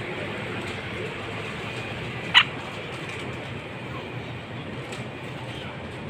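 Blue monk parakeet giving one short, sharp chirp a little over two seconds in, over a steady background hum.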